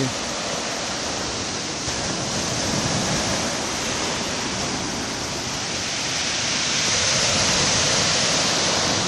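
Ocean swell breaking and washing against a breakwater of concrete tetrapods: a steady rushing surf that grows louder about two-thirds of the way through.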